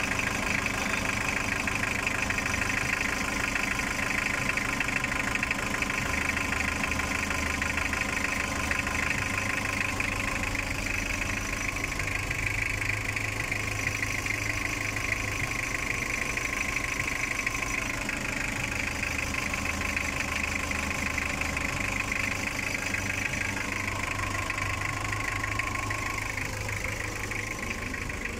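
Toyota 2L four-cylinder diesel engine idling steadily, freshly top-overhauled and holding a normal running temperature with no overheating.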